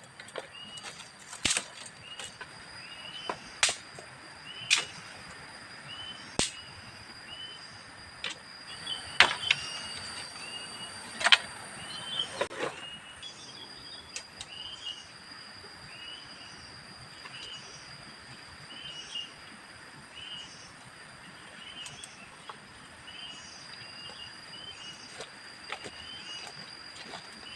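Forest ambience: a steady high-pitched insect drone and a bird chirping again and again, with a series of sharp knocks or taps in the first half that stand out as the loudest sounds.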